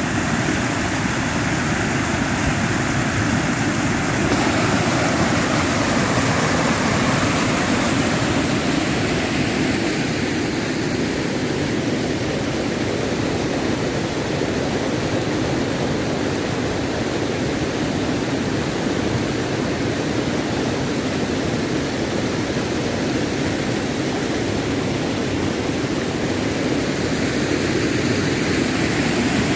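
River water rushing, a loud, steady, even flow.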